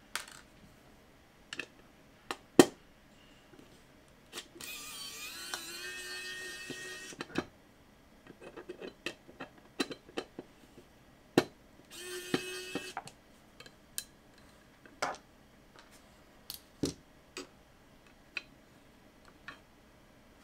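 Small screws being backed out of a Seagate Barracuda hard drive's circuit board with a precision screwdriver: scattered sharp clicks and taps of the tool, screws and metal parts. Twice, a whirring sound of a few seconds rises in pitch, about a quarter of the way in and again past the middle.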